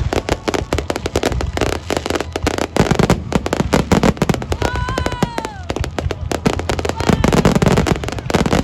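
Fireworks finale barrage: a dense, rapid, unbroken run of bangs and crackling bursts. About five seconds in, a brief high tone falls in pitch over the explosions.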